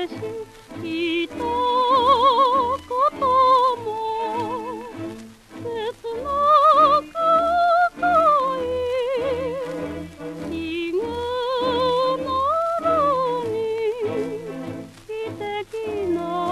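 Instrumental interlude of a 1947 Japanese popular song on a 78 rpm record: a wind and string orchestra plays a melody with strong vibrato over a steady, even bass beat, with faint surface clicks from the disc.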